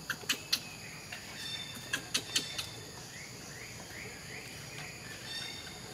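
Outdoor daytime ambience: a steady high insect buzz, a run of short rising bird chirps about three to four seconds in, and several sharp clicks in two quick clusters near the start and about two seconds in.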